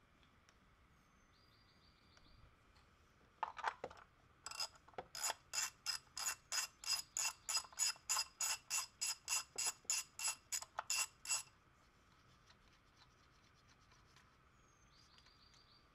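Ratchet wrench clicking as it backs out the bolt under the injector driver box. A few clicks about three and a half seconds in, then a steady run of about three to four clicks a second for some seven seconds that stops suddenly.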